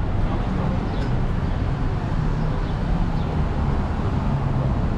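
City street traffic: vehicles running past with a steady low engine hum over a continuous wash of road noise.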